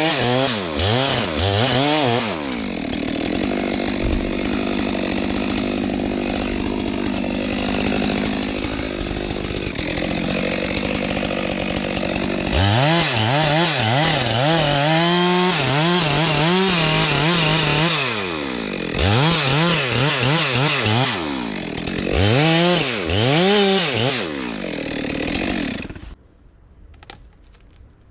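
Stihl two-stroke chainsaw revving up and down, then running at a steady pitch through a cut for about ten seconds, then revving in quick swings again. It stops abruptly about two seconds before the end.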